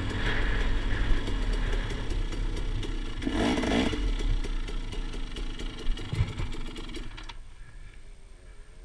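Dirt bike engine running hard on a rough trail, with knocks and clatter from the ride. A little after seven seconds the engine sound cuts off suddenly and only faint sounds remain, as the bike goes down in the cactus and stalls.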